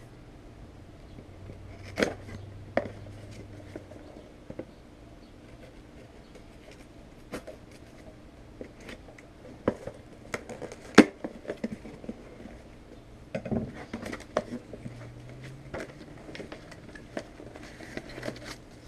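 A shipping package being opened and handled by hand: scattered clicks, taps and light knocks, with the sharpest knock about eleven seconds in.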